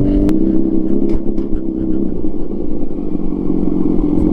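Motorcycle engine idling steadily, its tone shifting slightly about two seconds in.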